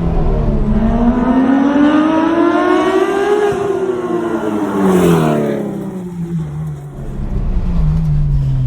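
Straight-piped Porsche 911 GT3 RS naturally aspirated flat-six exhaust: the revs climb steadily for about three seconds, then fall away as the driver lets off, settling to a lower drone near the end.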